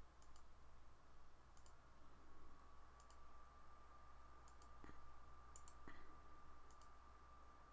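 Several faint computer mouse clicks, a second or so apart, over near-silent room tone, with a faint steady whine coming in about two seconds in.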